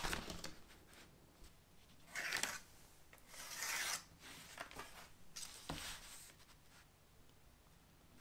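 Sheet of paper being handled, rustling and rubbing. The loudest swishes come about two seconds in and again around three and a half seconds in, with fainter rubbing after them.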